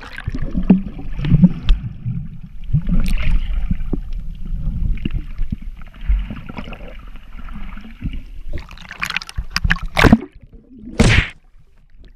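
Muffled underwater water noise picked up by a submerged GoPro Hero4: low sloshing and gurgling of water moving against the camera, with two louder rushing splashes about ten and eleven seconds in.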